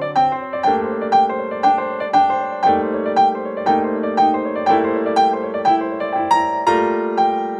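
Piano music played back through a 1979 Harman Kardon HK-560 stereo receiver: held chords under a melody with notes about twice a second.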